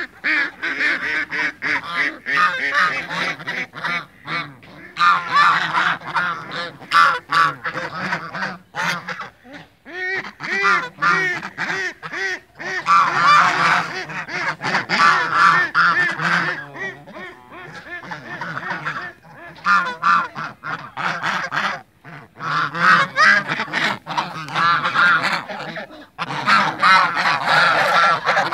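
A flock of domestic white geese honking over and over, many calls overlapping in loud bursts with a few brief lulls.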